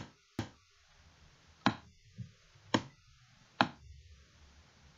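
Computer mouse clicking, about half a dozen sharp, irregularly spaced clicks.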